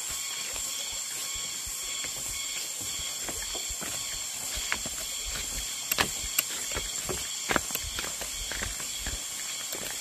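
Steady high-pitched buzzing of forest insects, with footsteps crunching on a grassy dirt path and a few sharper steps or twig snaps between about six and eight seconds in.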